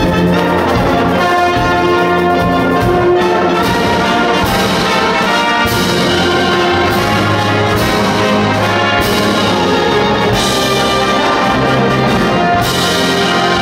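A school wind band playing together: flutes, clarinets, saxophones and brass over a glockenspiel and drum kit, in held chords. From about four seconds in, cymbal strikes land roughly once a second.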